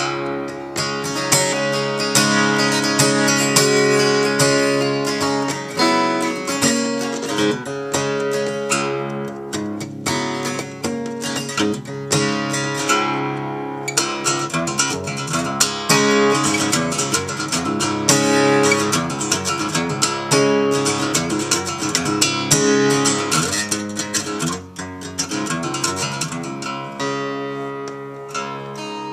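1963 Gibson J-50 acoustic guitar being played, strummed chords on freshly changed strings.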